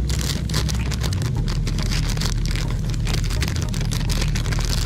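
Thin plastic MRE flameless ration heater sleeve crinkling and rustling as it is handled, over a steady low mechanical hum.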